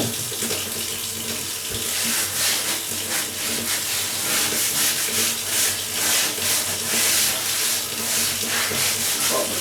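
Steel wool pad scrubbed round and round over a kitchen floor: a gritty hiss that swells with each stroke, repeating steadily.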